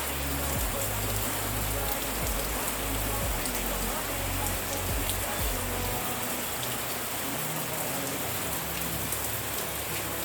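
Heavy rain falling, a steady dense hiss of drops on surfaces.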